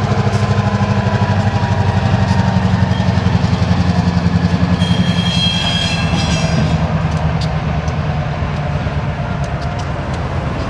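Norfolk Southern diesel-electric locomotives rolling slowly past, their engines running with a low, pulsing beat and wheels clicking over the rails. A brief high metallic squeal comes about halfway through.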